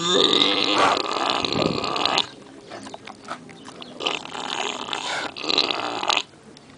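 A pig snoring in its sleep: two long, noisy snores of about two seconds each, the second beginning about four seconds in.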